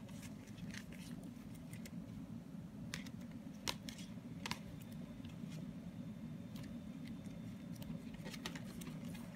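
Shrink-wrapped cardboard CD cases handled and shuffled by hand: scattered crinkles and clicks of plastic wrap and card, a few sharper ones near the middle and a quick cluster near the end, over a steady low hum.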